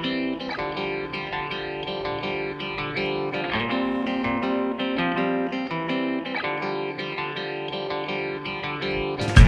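Background music led by a guitar, playing steadily. Just before the end a sudden loud noise cuts in over it.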